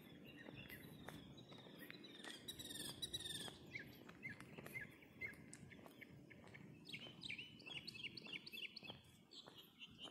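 Small songbirds chirping and calling at a distance, quietly, ending in a fast run of repeated short chirps over the last few seconds.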